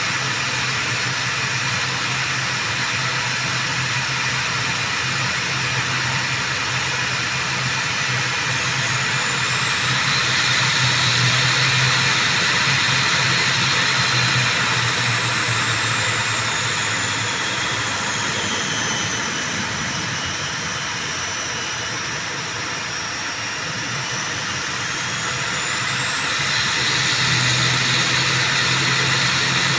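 The twin turboprop engines of an ATR 72-600 running, a steady rush with a high whine that slides lower and then climbs again. The sound swells about a third of the way in, eases off past the middle and builds again near the end.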